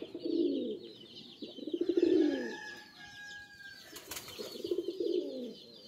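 Pigeons cooing, several low arching coos about a second each, with higher rapid chirping running underneath. A short sharp sound cuts in about four seconds in.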